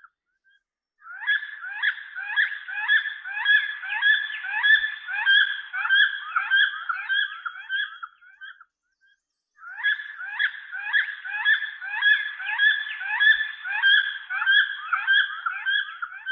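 Eagle calling: a run of repeated high, harsh cries, about two or three a second, with brief pauses near the start and around the middle.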